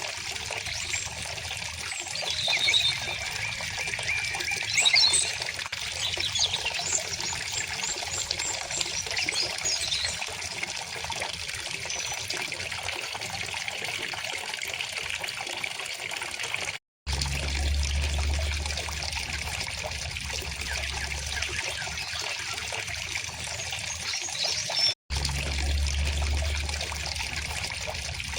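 Shallow river water trickling and burbling steadily while small songbirds chirp, most busily in the first third. The sound cuts out for an instant twice, and after the first cut a low rumble sits under the water.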